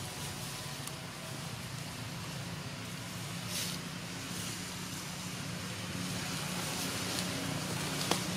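A steady low motor hum, like a distant engine running, under a faint hiss, with a few small clicks near the end.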